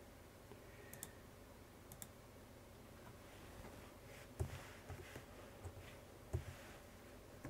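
Faint clicks of a computer mouse and keyboard: a few single clicks at first, then a short run of taps in the second half, the sharpest about four and a half and six and a half seconds in.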